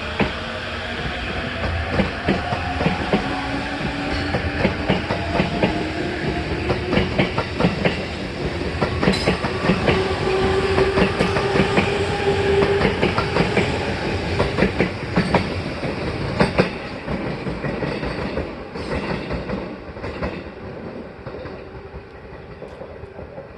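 E257-2000 series electric train running on the line: its traction motors give a whine of several tones rising slowly in pitch as it picks up speed, over dense clickety-clack from the wheels on rail joints. The sound fades away over the last several seconds.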